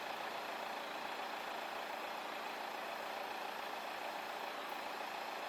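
Waterfall rushing: a steady, even noise of falling water with no change in level.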